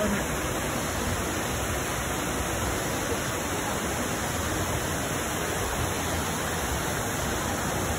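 Waterfall cascading over rocks: a steady, even rush of water.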